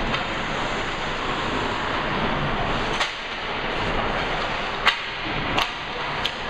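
Steady noise of a hockey rink with four sharp cracks of stick and puck impacts, the loudest a little before five seconds in.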